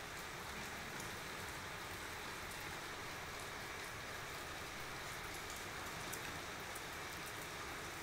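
Steady rain falling on a wet tiled roof terrace: an even hiss with faint, scattered ticks of drops.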